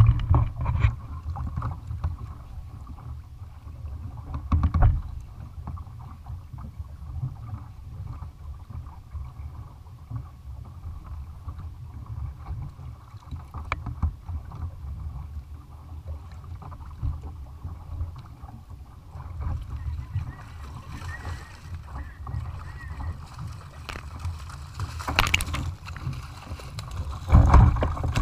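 Wind on the microphone and water moving against a fishing kayak, with scattered knocks and a louder burst of splashing near the end as a hooked fish comes up beside the hull.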